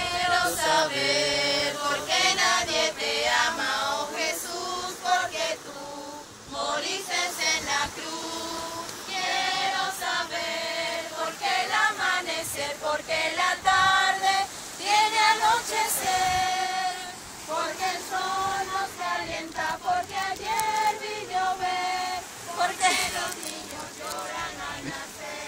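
A small amateur choir singing a song together, led by young women's voices, with short breaks between phrases.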